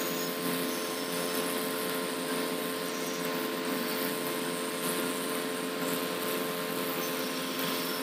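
SMD hot air rework gun blowing steadily, its fan giving an even rushing hum with a few fixed tones, as it heats the solder of a phone's charging jack to desolder it from the board.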